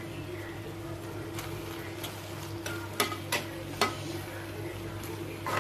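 Metal spoon stirring semiya upma in an aluminium pan, scraping and clinking against the pan a handful of times over a faint sizzle. A steady low hum runs underneath.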